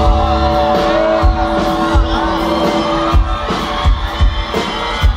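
Live sertanejo concert music over a loud sound system: a band with a steady drum beat, guitar and singing.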